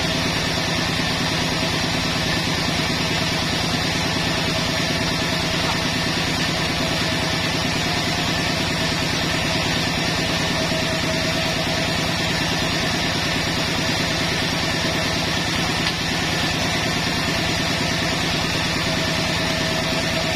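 Engine-driven sawmill saw running steadily while a pine log is fed through it, with the motor's fast even pulsing underneath.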